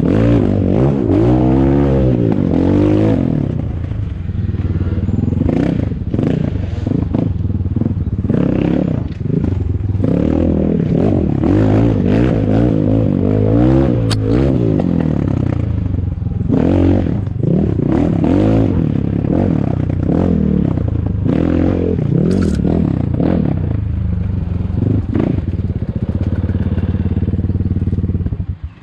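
ATAKI DR 250 enduro motorcycle engine being ridden, revving up and down over and over with the throttle, with clattering and scraping knocks throughout. The engine sound drops away suddenly near the end.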